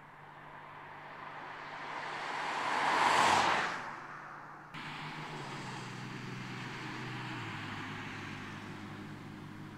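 BMW M4 Convertible's twin-turbo straight-six driving past. Engine and tyre noise swell to a loud peak about three seconds in and fade, then change suddenly to a steady engine drone whose pitch steps down a little about seven seconds in.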